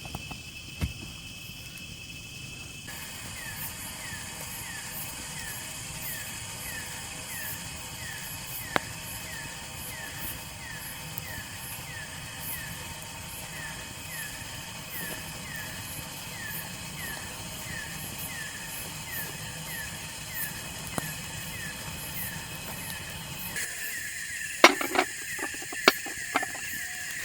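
Night-time forest insect chorus: steady high shrilling, joined by a repeated short falling chirp every half second or so. Near the end come a few sharp knocks.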